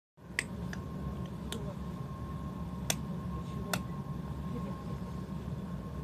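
Steady low hum of a stationary electric commuter train at a platform, with a faint steady high tone. Several sharp clicks fall in the first four seconds.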